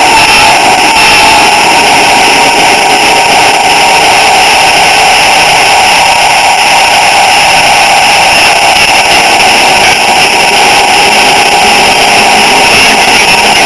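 Model train running along the track, heard from a camera riding on it: a loud, steady mechanical whirring and rattle from the drive and the wheels on the rails.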